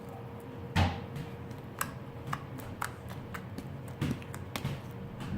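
Slime being mixed in a bowl: irregular light clicks and taps of a utensil and container, with one louder knock about a second in.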